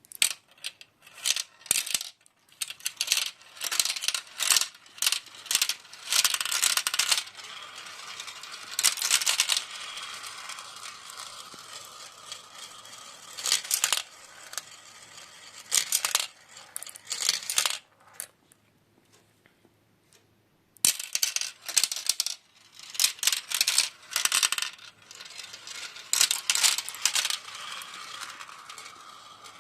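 Marbles clattering and rolling down a plastic marble run: bursts of sharp clicks as they drop and strike the pieces, with a steady rolling rattle in between. It stops for about three seconds some two-thirds of the way through, then starts again.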